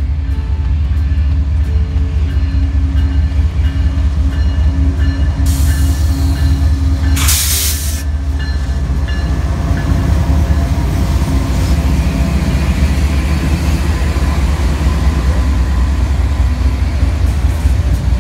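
BNSF freight train's GE diesel-electric locomotives passing close by with a deep, steady engine drone, followed by the double-stack intermodal cars rolling past. A short, loud rush of noise comes about seven seconds in as the locomotives go by.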